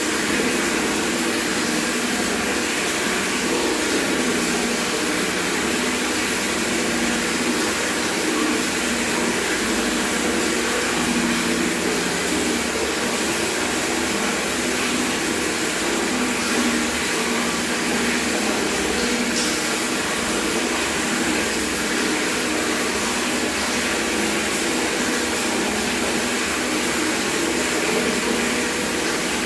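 Tap water running steadily from a faucet into a bucket, an even splashing rush.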